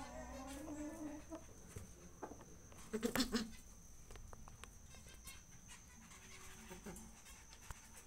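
Domestic pigeon cooing low, a slightly rising call at the start. A brief louder burst of cooing and rustling about three seconds in.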